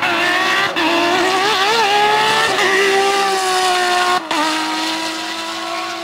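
Porsche 997 GT3 rally car's flat-six engine running hard at high revs, its pitch wavering up and down with the throttle, then holding a steadier note that falls slightly. About four seconds in the sound breaks off briefly and returns lower in pitch.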